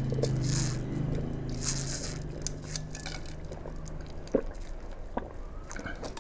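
A man drinking from a large glass in long gulps and swallows, with a low hum in the first half and a couple of small sharp clicks near the end.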